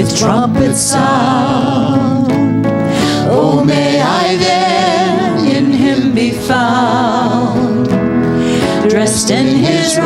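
Worship band and singers performing a contemporary hymn: sung melody with vibrato over a steady band accompaniment.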